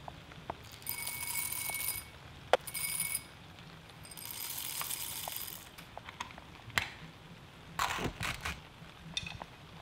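Hand coffee grinder being loaded with beans and cranked: several short bursts of grinding noise, with sharp clicks and a cluster of knocks about eight seconds in.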